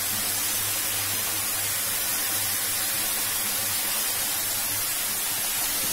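Steady, even hiss from the stove, where vegetables cook in oil in a kadai over a lit gas burner.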